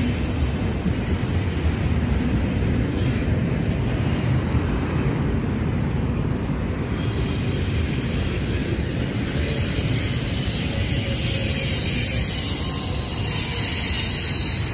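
Double-stack intermodal freight train rolling past: a steady rumble of steel wheels on the rails, with a thin high wheel squeal that gets stronger about halfway through.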